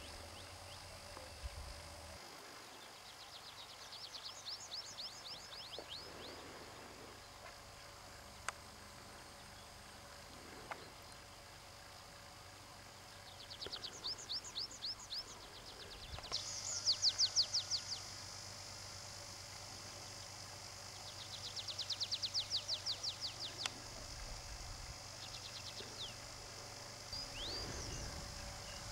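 A songbird singing outdoors: short, fast trills of high down-sweeping notes, each run lasting one to two seconds, repeated about six times with pauses between, over a faint steady background.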